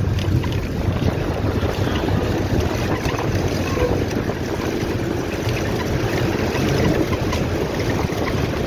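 Steady low rumble of wind and road noise from a moving vehicle, with wind buffeting the microphone.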